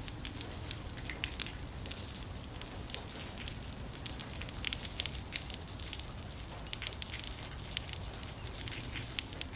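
Rain and water drips pattering, with many irregular sharp ticks of drops landing close to the microphone over a steady low rumble.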